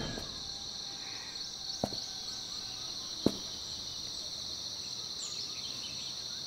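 Steady high-pitched chirring of insects, with two faint clicks about two and three seconds in.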